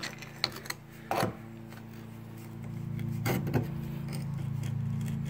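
A few light clicks and knocks of pliers and hard, brittle pieces of liquid-nitrogen-frozen Line-X coating being picked at on a hard plastic surface, over a steady low hum that swells about halfway through.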